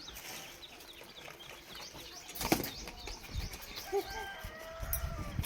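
Small birds chirping, many quick repeated chirps, with a sharp thump about halfway through and another near the end.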